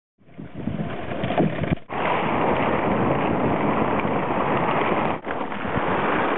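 Wind buffeting the microphone over open sea, with sea water washing and splashing past the raft and a towed net trawl. The noise starts a moment in and breaks off briefly twice.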